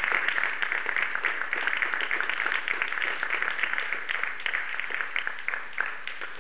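Small audience applauding, the clapping steadily thinning and fading.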